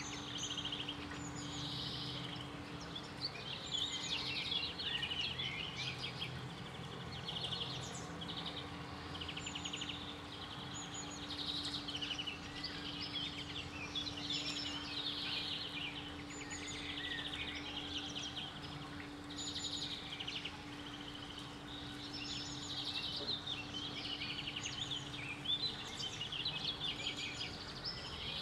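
Several small songbirds chirping and singing in short, repeated bursts, over a steady low hum.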